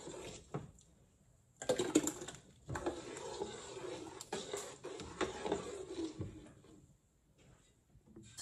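Green tomatillo salsa sizzling in a hot pan with olive oil. It starts suddenly about one and a half seconds in, with a few clicks, and dies away about a second before the end.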